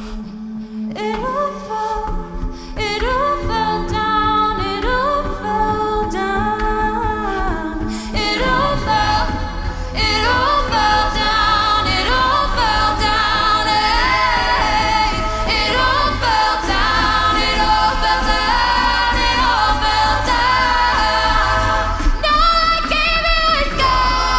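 A cappella group singing a pop song: a female lead voice over layered backing harmonies and a held low note. About eight seconds in the bass voice slides down and beatbox percussion joins, and the full group gets louder.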